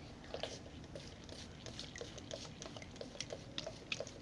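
Glue being stirred in a mixing bowl with a spoon: faint, irregular small clicks and sticky pops.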